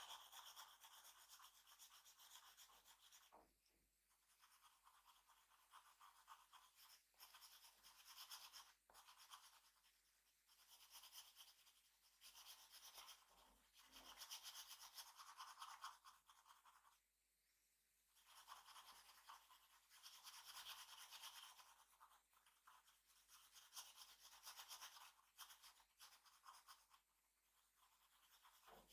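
A drawing tool scratching across paper in rapid back-and-forth shading strokes, in stretches of a few seconds with brief pauses between them.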